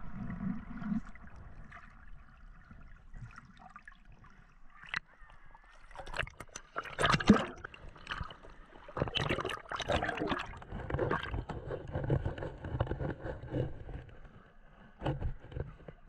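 Sea water sloshing and splashing around a handheld action camera as it moves between underwater and the surface: muffled and quiet at first, then irregular splashes and gurgles from about six seconds in.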